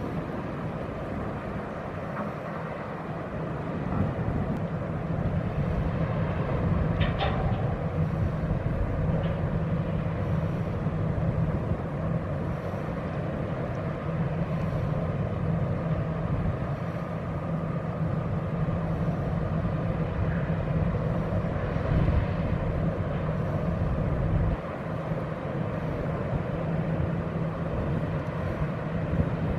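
Steady low drone of a passing ro-ro cargo ship's engines, a constant deep hum under a rushing noise, with a few short higher sounds about seven seconds in.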